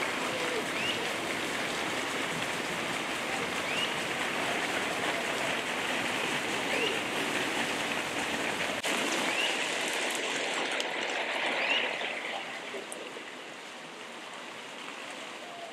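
Steady, dense hiss of forest ambience, with a short rising chirp repeating about every three seconds. The hiss thins out about twelve seconds in.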